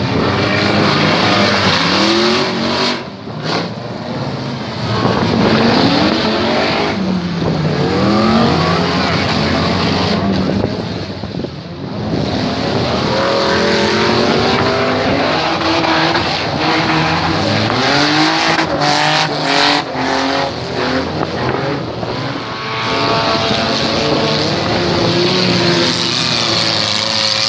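Several demolition derby cars' engines revving hard, their pitch rising and falling over and over, with tyres squealing. There are a few sharp knocks, about three seconds in and again near two-thirds of the way through.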